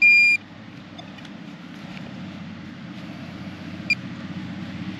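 A metal detector's high-pitched electronic beep signalling a metal target: one short tone at the start and a brief blip about four seconds in, over a steady low rumble.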